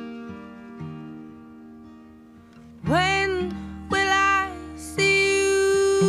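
Music: acoustic guitar picking notes, with a voice starting to sing about three seconds in, holding long notes with vibrato.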